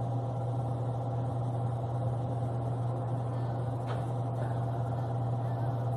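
Steady low electric hum with a faint whir, from a small motor running without change, with one faint click about four seconds in.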